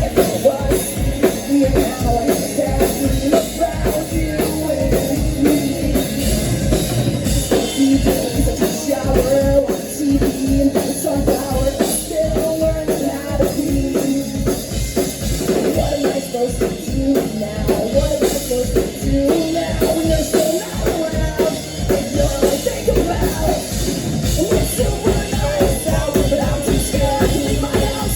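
Live rock band playing a song, a drum kit keeping a steady driving beat under the full band.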